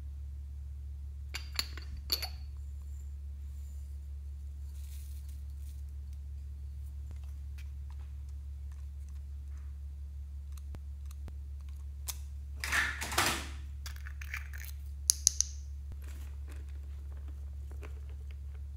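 Hands handling small plastic and ceramic novelty containers: a couple of light clicks about two seconds in, a brief rustle about two thirds of the way through, then three quick sharp ticks, over a steady low hum.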